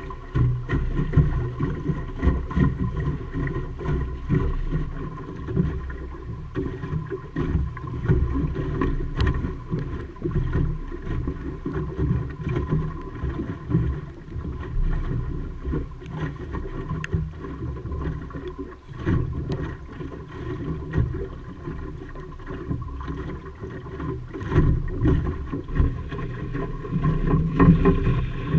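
Wind rumbling on the microphone, with water splashing and slapping against the hull of a small wooden Optimist sailing dinghy under way, and occasional light knocks.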